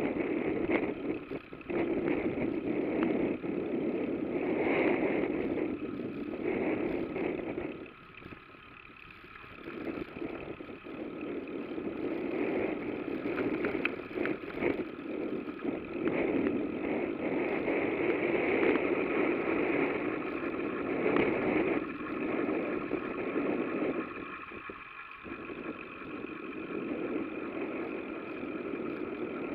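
Rushing wind and road noise on a camera carried on a moving bicycle, rising and falling with speed and dropping away twice for a couple of seconds.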